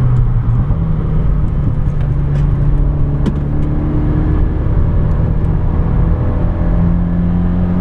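Renault Megane 225's turbocharged four-cylinder engine running steadily on track through its aftermarket exhaust, heard from inside the car over road and tyre noise. The engine note rises a little about six and a half seconds in.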